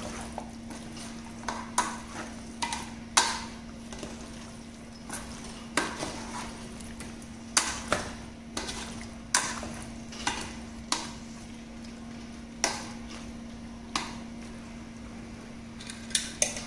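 A slotted metal spoon scraping and clinking against a metal pot while stirring a thick chicken-and-potato masala. The scrapes come irregularly, about one a second, over a steady hum.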